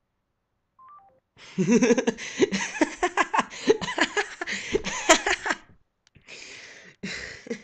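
A young man laughs loudly for about four seconds, then more quietly and breathily near the end. About a second in, just before the laughter, a few quiet electronic beeps step down in pitch.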